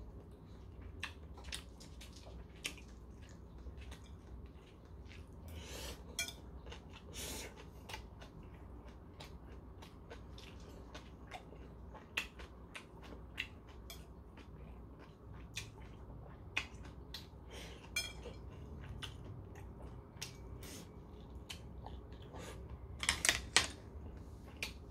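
Metal chopsticks clicking and tapping against a porcelain bowl as food is picked up, mixed with quiet chewing. There are scattered single clicks, a few brief flurries, and a louder burst of clatter near the end.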